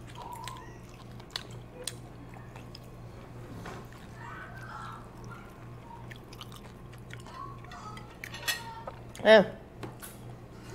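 People eating at the table: chewing and scattered small clicks of cutlery and dishes, with faint voices in the background and one short, loud vocal sound near the end.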